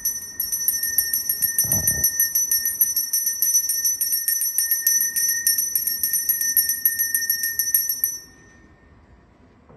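A small hand bell rung rapidly and continuously, its high ringing tone struck many times a second. It stops abruptly about eight seconds in.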